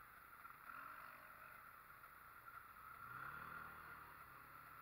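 Faint ATV engine running, rising in pitch briefly about three seconds in, over a steady high hum.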